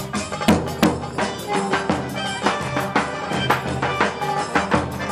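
Turkish folk dance music: a reedy wind-instrument melody over a steady drum beat.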